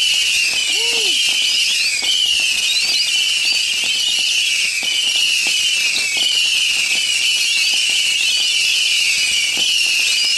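Ground fireworks cake firing, with many soft pops and crackles, over a loud, steady chorus of night insects pulsing about twice a second in a high pitch.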